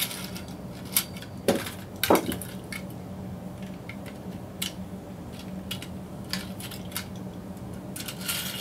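Light clicks and clinks of a small plastic-and-metal Beyblade top-plate toy being set against a plastic stadium. A few sharper knocks come in the first two seconds, then sparse scattered ticks.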